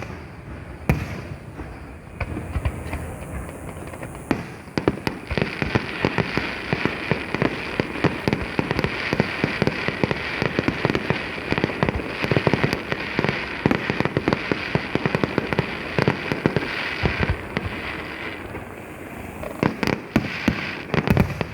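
Aerial fireworks: a single sharp bang about a second in, then from about four seconds a dense run of rapid crackling bangs that thins out near eighteen seconds, and a few loud booms near the end.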